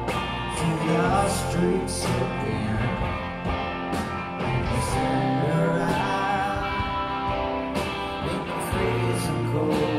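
Rock band playing live: two electric guitars, electric bass and a drum kit with regular cymbal hits, in a stretch of the song with no words sung.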